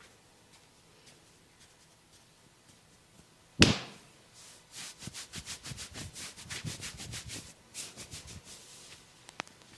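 Head massage on hair and scalp: one loud sharp crack a little over three seconds in, then a quick run of scratching strokes, about five a second, for about four seconds.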